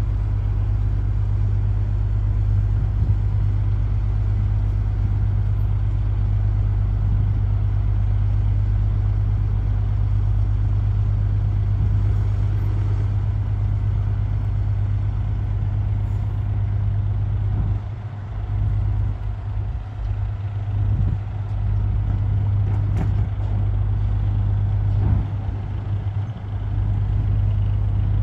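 A large diesel engine running steadily at low revs: a constant deep hum that wavers briefly past the middle.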